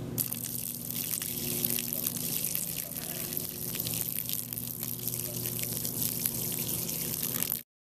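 Water poured from a plastic bottle in a thin stream, splashing and trickling onto porous permeable pavement, with many small splats over a steady low hum. The sound cuts off abruptly near the end.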